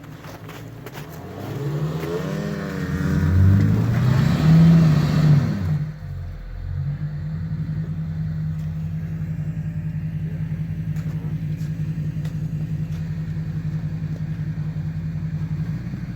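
Truck engine revving hard under load during a snow recovery pull, its pitch rising and wavering for a few seconds. It then drops back about six seconds in and runs steadily at a lower speed.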